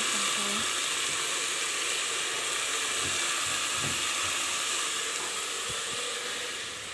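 Food frying in a hot pan, a steady sizzling hiss, with a few soft low knocks about three to four seconds in.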